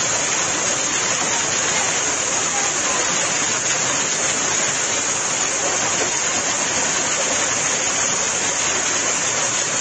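Hail and torrential rain pelting down during a severe thunderstorm: a dense, steady rush of noise that never lets up.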